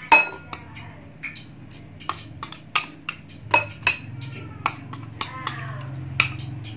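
Metal spoon clinking and scraping against a porcelain bowl and a glass bowl as spicy sauce is spooned over fried chicken wings: a dozen or so sharp, irregular clinks over a low steady hum.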